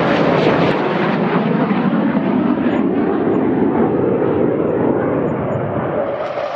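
Fighter jet roar: loud, continuous jet engine noise whose hiss gradually dulls as the jet moves off, then brightens abruptly near the end.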